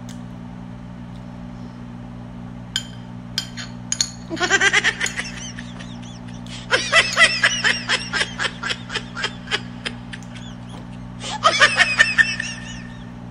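Laughter sound effect added in editing: three bouts of rapid giggling, a short one about four seconds in, a long one from about seven to ten seconds, and another near the end. A few light clinks of a spoon come just before, over a steady low hum.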